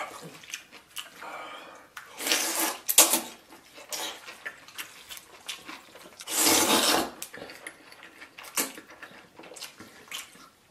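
A person slurping and chewing noodles, with loud slurps about two seconds in, near three seconds, and a longer one around six and a half seconds, and quieter mouth sounds between them.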